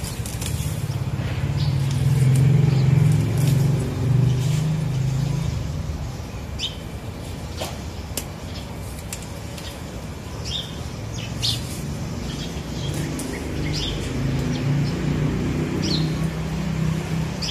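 Outdoor ambience: a low rumble that swells a couple of seconds in and again near the end, with short high bird chirps now and then.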